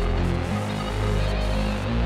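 Background music with sustained deep bass notes and chords, the harmony changing about every second and a half.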